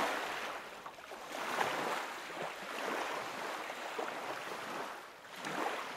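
Waves washing and splashing, swelling and ebbing several times with no regular rhythm.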